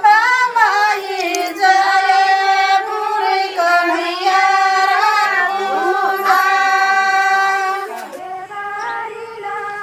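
Tharu women singing an Astimki folk song unaccompanied, in high voices with long held, gliding notes. The phrase ends about eight seconds in and softer singing follows.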